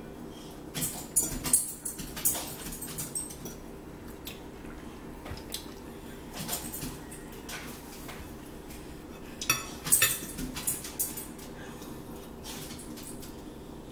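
Forks clinking and scraping against plates during a meal, in two bursts of short clicks, about a second in and again near ten seconds, over a steady low hum.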